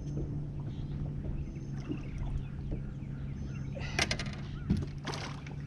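Steady low hum on a small fishing boat, broken about four seconds in by a few sharp knocks and splashes as a hooked catfish is grabbed for by hand at the side of the boat.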